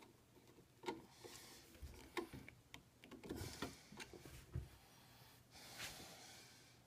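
Faint, scattered clicks and rustles of hands handling stepper motor wires against a metal screw terminal strip.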